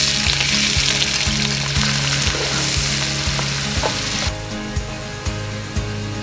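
Sliced onions sizzling as they go into hot oil and are stirred, the sizzle loud at first and easing off about four seconds in. Background music with a steady beat plays underneath.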